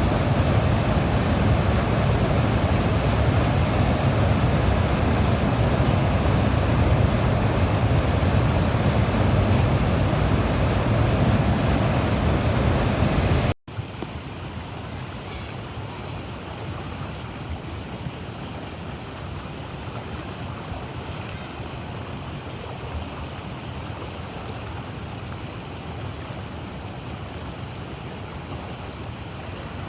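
River in flood, the water rushing with a steady, loud noise; about halfway through it cuts off abruptly to a quieter rush of water.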